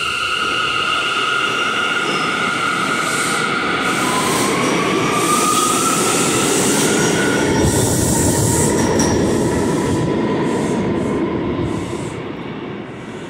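New York City subway local train pulling out of the station and gaining speed: a heavy rumble and rattle of steel wheels on rail, with a propulsion whine that climbs in pitch as it accelerates and some high squealing in the middle. The sound fades near the end as the train pulls away.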